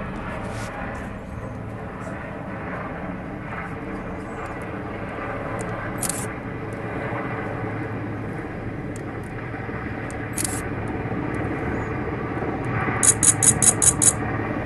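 Marine One helicopter coming in to land, its rotors and engines giving a steady drone. About a second before the end, a quick run of six sharp clicks.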